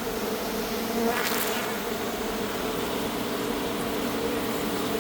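Dense, steady buzzing of a large swarm of honeybees, agitated after their hive in the floor was cut open.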